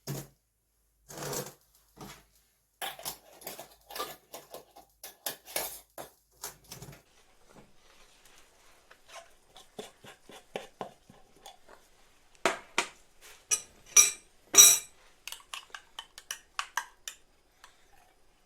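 Kitchen utensils clinking and scraping against glass jars and dishes in an irregular run of taps. The loudest strikes come in a cluster about two thirds of the way through, and they ring briefly.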